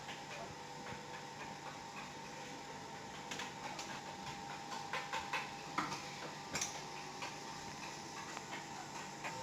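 Steady hum of a running refrigerator with a thin high whine, and scattered light clicks and taps mostly in the middle stretch.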